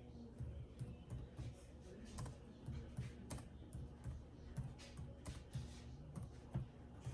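Typing on a computer keyboard: irregular, quick key clicks.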